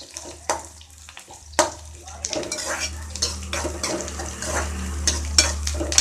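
Metal spoon stirring and scraping sliced onions, green chillies and whole spices in a stainless steel kadai, knocking against the pan again and again, over the sizzle of frying in hot oil that grows louder about halfway through.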